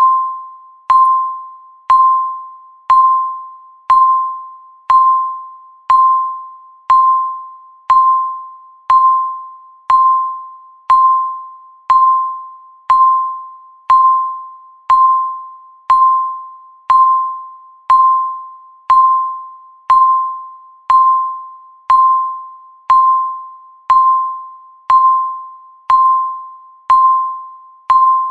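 Countdown timer's electronic tick sound: a short, clear pitched ping once a second, each struck sharply and fading away before the next.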